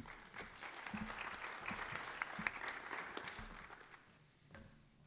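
Audience applauding, a dense patter of claps that fades away about four seconds in.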